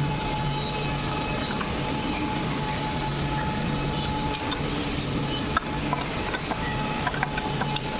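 WM-415GH four-sided wood planer running, a steady machine hum with a constant whine. Scattered sharp clicks and knocks come in over the second half.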